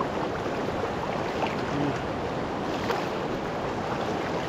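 Steady rushing of a fast-flowing river around a person wading in it.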